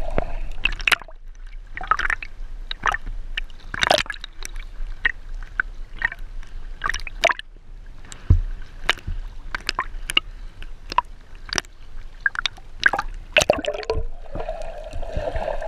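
Seawater sloshing and gurgling around a waterproof camera held at the surface and dipped under, with many irregular sharp clicks and pops.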